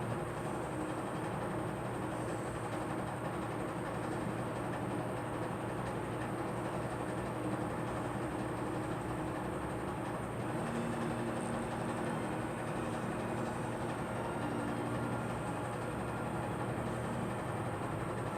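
Steady mechanical rumble with a low hum, unbroken throughout, with no coughing heard.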